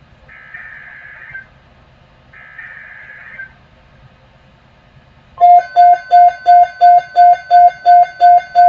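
Emergency Alert System alert opening: two buzzy, warbling SAME digital header bursts about a second long each, with a second's pause between, over a faint hum. About five seconds in, a much louder electronic alert tone starts beeping about three times a second.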